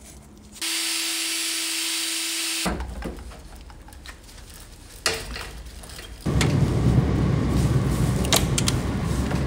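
A small power tool running: a steady whirring hum with a high hiss for about two seconds, then, after a quieter gap with a click, a louder, rougher, uneven noise from about six seconds in.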